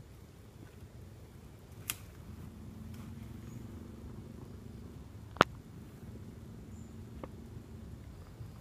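Footsteps in rubber boots crunching and rustling through dry leaves, sticks and brush, with a sharp crack about two seconds in and a louder one about five seconds in. A faint low steady hum sits underneath through the middle.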